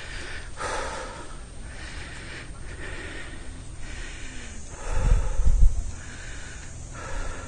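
A man breathing hard, a run of loud breaths in and out: he is out of breath from the steep uphill climb. A gust of wind rumbles on the microphone about five seconds in.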